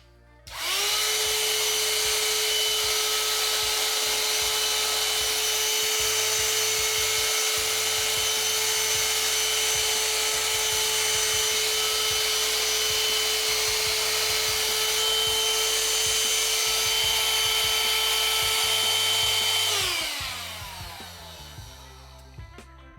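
Parkside PHSSA 20-Li C1 cordless hand-held vacuum cleaner switched on: its motor runs with a steady whine and a rush of air, then is switched off about twenty seconds in and spins down, the whine falling in pitch.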